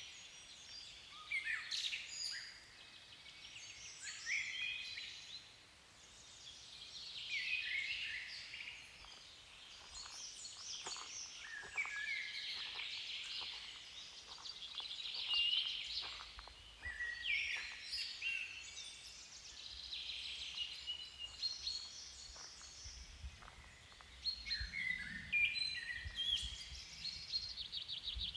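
Several songbirds singing and chirping, short overlapping phrases one after another throughout.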